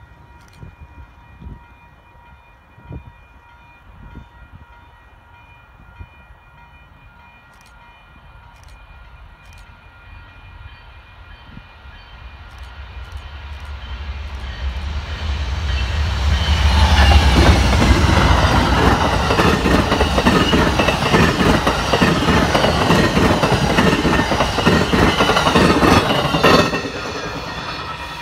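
Amtrak passenger train approaching and passing at speed. Faint steady high tones and scattered clicks come first. The locomotive's low rumble then builds from about halfway in, and the wheels clatter loudly over the rails as the cars go by. The sound drops off sharply near the end as the last car clears.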